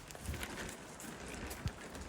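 Wind gusting against the microphone, making irregular low rumbling thumps, with scattered faint clicks and ticks over it.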